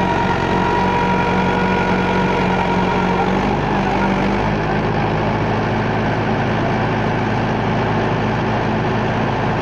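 Mahindra 415 DI XP Plus tractor's diesel engine running steadily under load as the stuck tractor strains to pull a loaded trailer out of mud, its rear wheels churning the soil. The engine note changes about four seconds in.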